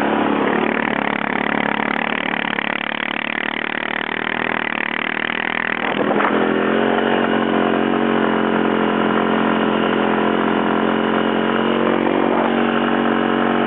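ATV engine running, rougher and mixed with noise for the first six seconds, then a little louder and holding a steady, even pitch.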